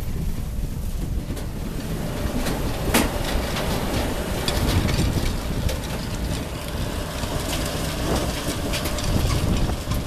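Vervaet Beet Eater 617 sugar beet harvester running with a steady low rumble while its unloading elevator drops sugar beets into a trailer, a rattling clatter of beets striking the trailer with many sharp knocks, the loudest about three seconds in.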